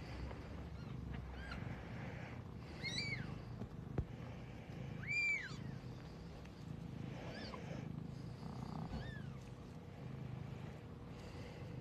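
Newborn Siberian kittens mewing: about five short, high-pitched cries that each rise and fall, over the mother cat's steady low purring. One sharp click about four seconds in.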